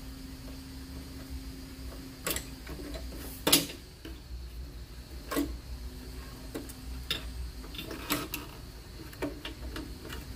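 Irregular plastic clicks and knocks as the retainer clips holding a Ford Explorer's underbody shield are twisted out by hand, the sharpest about three and a half seconds in. A steady low hum runs underneath.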